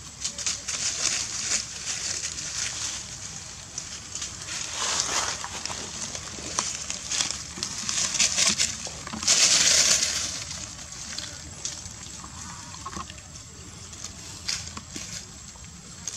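Dry leaf litter rustling and crackling as a macaque mother and her baby shift about and handle the leaves, with a louder burst of crackling about nine to ten seconds in.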